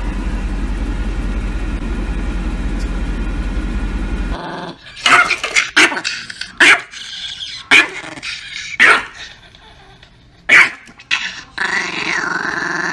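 A small grey poodle snarling and barking in about six short, loud bursts, after the steady rumble of a car's interior for the first four seconds.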